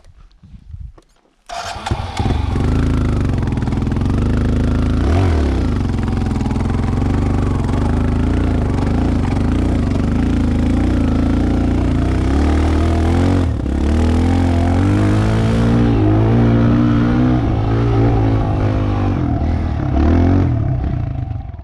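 Dirt bike engine running under load on a climb, its pitch rising and falling again and again with the throttle. It comes in loud after about a second and a half of quiet and cuts off suddenly near the end.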